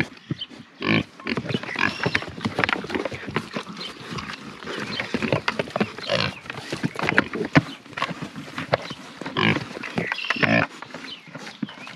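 Several pigs grunting and squealing as they crowd together over bread treats, with chewing and smacking between the calls. The louder calls come about a second in, around the middle, and near ten seconds.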